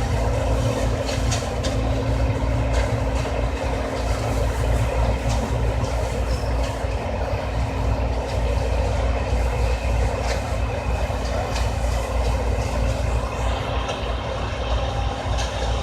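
John Deere C670 combine harvester running steadily at work: a continuous low engine drone with a constant hum and scattered light clicks and rattles over it.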